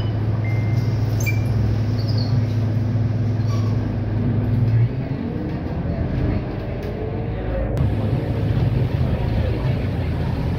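A city bus heard from inside its cabin: a steady low hum while it stands at a stop, which ends about halfway through as the bus pulls away, giving way to engine and road noise.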